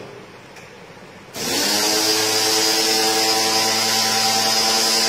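A small electric pressure washer starts up about a second in and then runs steadily: a motor hum under a loud hiss of water spray, used to wash the indoor split AC unit.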